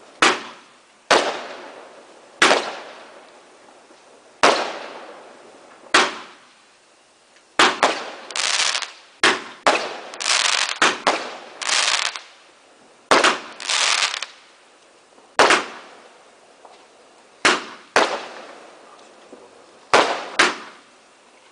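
Fireworks bursting overhead: a run of sharp bangs every second or two, each trailing off in an echo, with several longer hissing bursts packed together in the middle.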